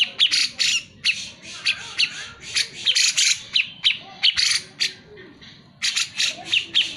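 Cucak jenggot (grey-cheeked bulbul) calling in a rapid run of short, harsh, scratchy notes, about three or four a second. It breaks off for over a second past the middle, then resumes, faster, near the end.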